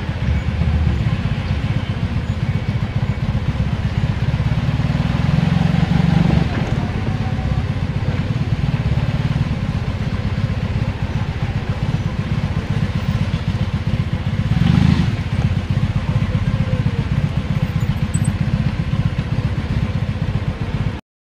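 Steady rumble of engines and tyres in slow street traffic, heard from a moving vehicle, with wind buffeting the microphone. There is a brief louder swell about fifteen seconds in, and the sound cuts off suddenly near the end.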